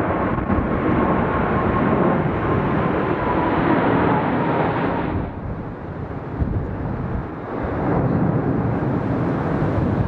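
Airbus A380's four Engine Alliance GP7200 turbofans running as the jet passes overhead: a loud, steady jet roar with a thin whine that sinks slowly in pitch. About halfway through, the sound suddenly turns duller as the jet moves away.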